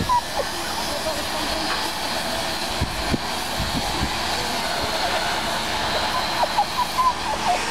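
Steady running noise of heavy diesel plant, the mobile crane and lorry working as the trawler is lifted, with a faint high whine over it.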